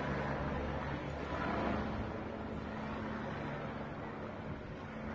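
Steady low engine drone with a few held low tones, over a wash of city background noise.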